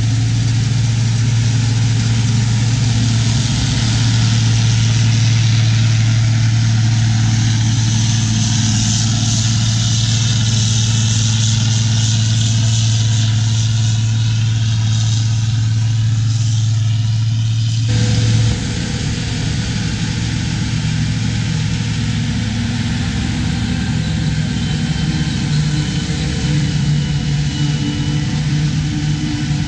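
Forage harvesting machinery running steadily while chopping corn silage, a tractor engine and chopper with a strong low hum. About 18 seconds in the sound changes abruptly to a different engine note with a faint high whine.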